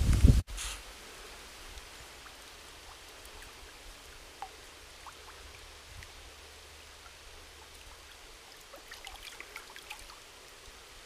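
A short loud low rumble stops abruptly about half a second in. After it, the faint steady hiss of a small slow stream, with a few light ticks and drips.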